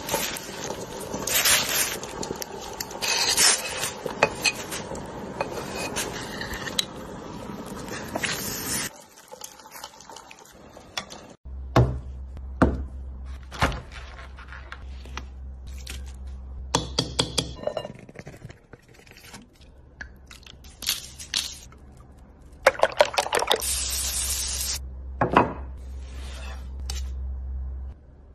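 Food-preparation sounds: a simmering hot-pot broth bubbling, with dish and chopstick clatter, for the first nine seconds. Then a low hum with scattered taps and knocks, and a few short rustling bursts.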